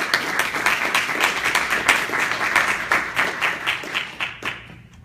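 Audience applauding: many hands clapping densely, thinning out and stopping near the end.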